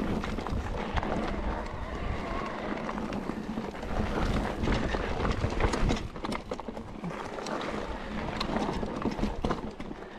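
Mountain bike rattling and knocking over a rough, rocky trail, with many quick clicks and clatters over a constant low rumble.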